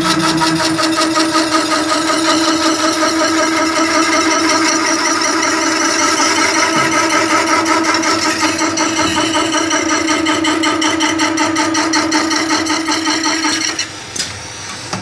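Special-purpose double cutter and drill machine running, a steady whine with a fast, even chatter, cutting off abruptly about a second before the end.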